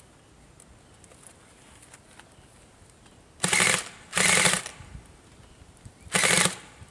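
Airsoft electric gun firing three short full-auto bursts of about half a second each, two in quick succession near the middle and a third about two seconds later.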